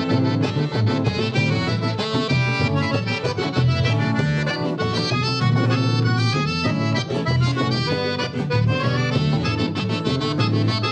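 Accordion (gaita) playing a fast run of notes over a steady bass and rhythm backing: the instrumental break of a gaúcho fandango dance tune.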